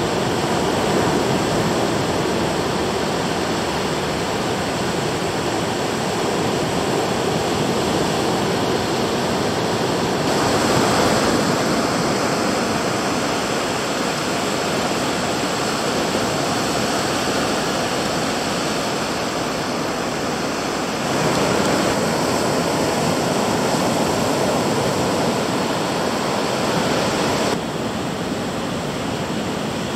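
Ocean surf: waves breaking and washing up the beach, a steady rush of noise. Its level and tone change abruptly about ten seconds in, again after about twenty seconds and near the end.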